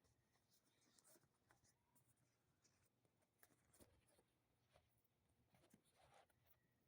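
Near silence with faint scattered clicks and rustles: hands handling a bicycle inner tube to press the air out of it.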